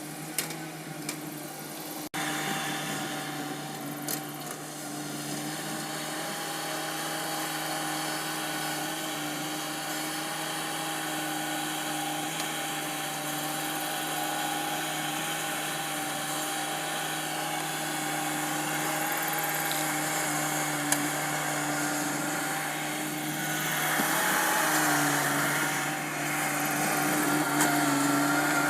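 Bobcat skid steer's engine running steadily under work with an even drone, growing louder and busier about 24 seconds in.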